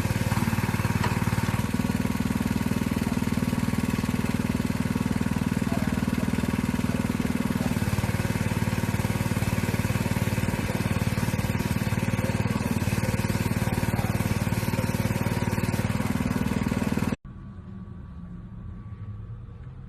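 McLaren supercar's twin-turbo V8 idling steadily. It cuts off abruptly about 17 seconds in, leaving a much quieter background hum.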